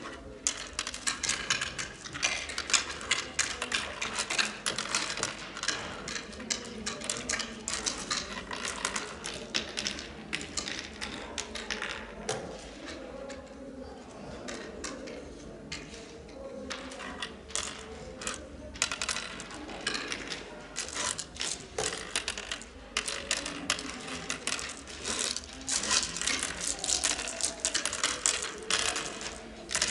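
Oware seeds clicking as they are dropped and picked up in the pits of a wooden oware board, in quick runs of small clicks with a sparser lull about halfway through.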